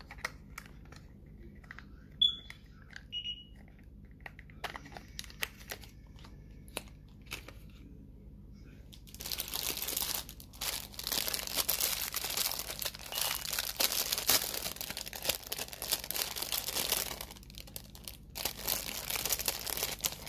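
Clear plastic packaging crinkling as the glitter jars are unwrapped: steady crinkling for about eight seconds from about halfway in, then again briefly near the end. Before that come a few light clicks and taps of the small plastic jars and lids being handled.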